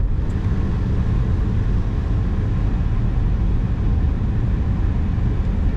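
Inside the cab of a 1997 Ford F-350 on the move: its 7.3-litre Power Stroke turbo-diesel V8 running steadily under way, mixed with tyre and road rumble. The sound holds an even level.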